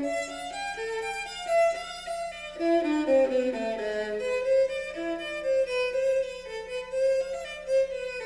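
A recording of violin music played back through a Western Electric 4165 horn loudspeaker driven by Western Electric 1126 and 59 amplifiers. It is a continuous violin melody, with a downward slide in pitch about three seconds in.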